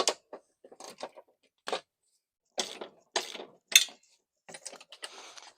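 Metal hand tools clicking and clinking on a mower deck in short separate strikes, with a quicker rattling run near the end, as the belt tensioner's bolts are worked loose.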